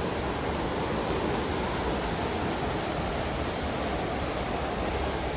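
Steady rushing of water from a narrow, fast-flowing river channel.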